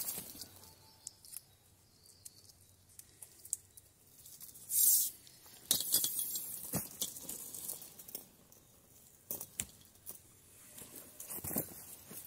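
Rustling and scraping of dry leaf litter and scattered light knocks as a length of black plastic water pipe is pulled and bent along a trench, with a short, louder scrape about five seconds in.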